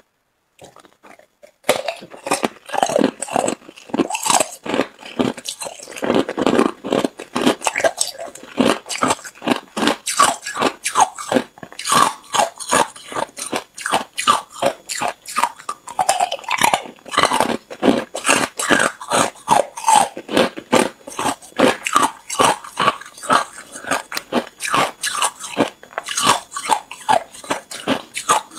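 Hard clear ice cubes being bitten and crunched between the teeth: a rapid, continuous run of sharp cracks and crunches, starting about two seconds in.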